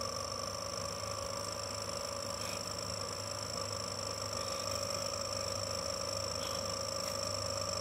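Rubber chicken taped onto an idling car's exhaust, squealing in one steady, unbroken tone as the exhaust gas blows through it, over the low hum of the engine.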